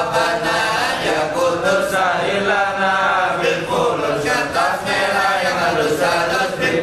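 A group of men chanting a religious chant together in unison, with long, held, wavering notes.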